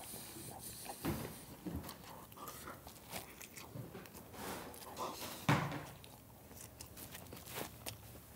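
A man biting into and chewing a mouthful of burger: faint, scattered wet mouth clicks and smacks, with one louder sound about five and a half seconds in.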